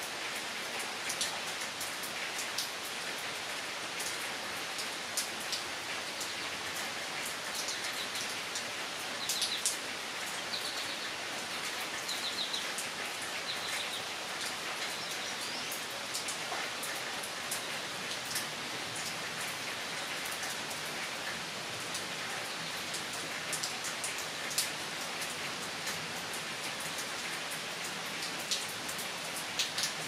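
Steady rain falling, with nearby drops ticking sharply now and then. A few short high chirps come through about a third of the way in.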